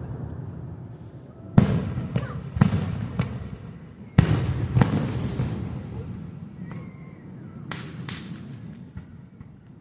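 Aerial fireworks bursting: a run of sharp booms, each trailing off in a low rumble, coming in quick pairs about two and four seconds in and again near the end.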